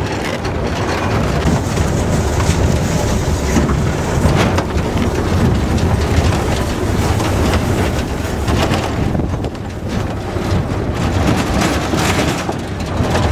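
Truck driving along a rough sandy dirt track: steady engine and road noise with body rattle, mixed with wind on the microphone from riding in the open back.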